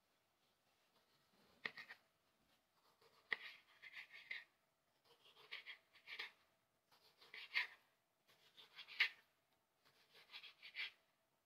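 A kitchen knife sawing through a ripe tomato, one slice about every second and a half, six in all. Each slice is a short scratchy sawing that ends in a click as the blade meets the surface below.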